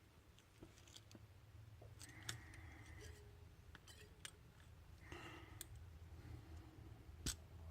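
Faint small metallic clicks and scraping of lock picking tools and a shim working in a Lockwood pin-tumbler lock. A few sharper clicks sound, the loudest near the end.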